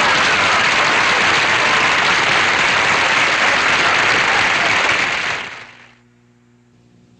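Studio audience applause at the end of a sitcom scene, a dense steady clapping that fades away about five and a half seconds in.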